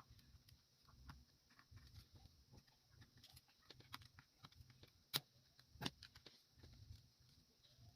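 Faint, scattered light clicks and taps of small parts and tools being handled while a Tronsmart Trip speaker is taken apart, with two sharper clicks about five and six seconds in.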